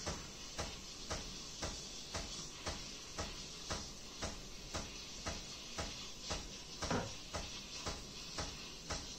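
Background music with a steady ticking beat, about two beats a second. About seven seconds in there is a single louder knock as a ceramic mug is set down on top of the espresso machine.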